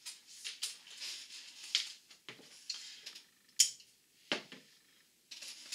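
Handling noises at a workbench as a wire fishing leader and a pair of crimping pliers are moved about: scattered rustles and light clicks, with a sharp knock about three and a half seconds in and a smaller one just after.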